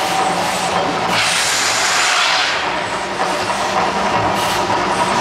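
The Mirage's artificial volcano erupting: a loud, steady rush and hiss of its tall fountain plumes, swelling again about a second in.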